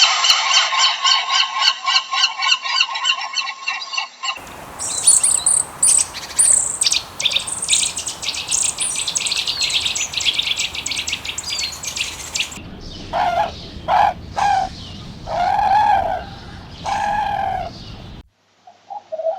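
Farm birds calling in three abruptly cut sections. First a dense run of honking goose calls. Then many high chirps over a noisy background, and then several separate lower calls that cut off abruptly a second before the end.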